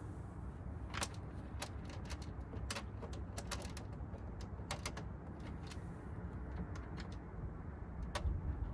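Irregular small metal clicks and taps from handling bolts, washers and tools while fastening a truck side mirror, over a steady low rumble.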